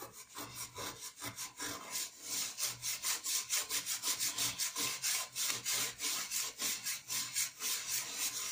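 Hand scrubbing the inside of a greasy metal pot with toothpaste: a rapid, rhythmic rasping rub, about five strokes a second, scouring the grease off.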